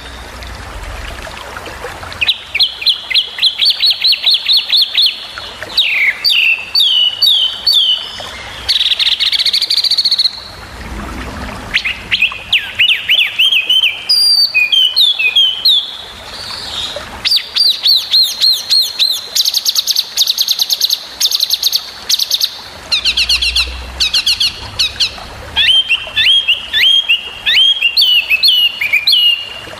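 Brown-chested jungle flycatcher (sikatan rimba dada coklat) singing rapid bursts of sharp, high, quickly repeated notes, the varied 'tembakan' (shot) phrases prized in masteran recordings. Each burst lasts a second or two, with short pauses between them.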